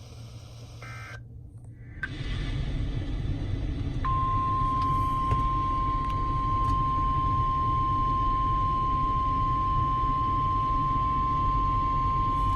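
Weather radio receiver hiss rises about two seconds in. About four seconds in, the NOAA Weather Radio 1050 Hz warning alarm tone starts: one steady high tone, held without a break, that signals a warning message is about to be broadcast.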